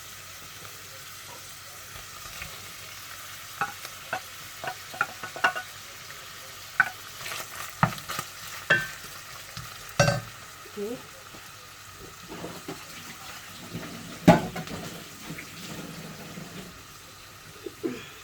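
Tuna with garlic and ginger sizzling in a frying pan while a utensil stirs it, scraping and knocking against the pan, loudest about ten and fourteen seconds in.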